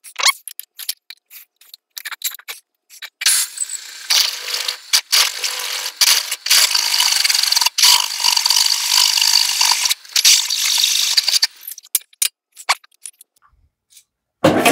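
Clicking and rattling for a few seconds, then a floor drill press drilling out a hole in a metal part for about eight seconds: a steady whine with cutting noise. A few more clicks follow once it stops.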